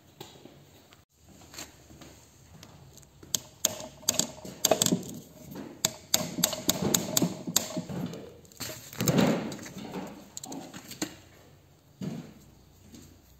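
Steel hammer tapping a punch against a detent cover plug in a BMW ZF 5-speed gearbox casing to knock the cover out: a run of quick, sharp metallic taps with a few duller knocks, starting about three seconds in and dying away about eleven seconds in.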